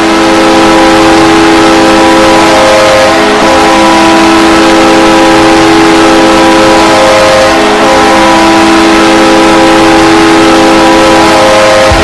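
Ice hockey arena goal horn blasting a long, loud, steady chord of several notes, some of them dropping in and out. It sounds over the roar of a cheering crowd and stops at the very end.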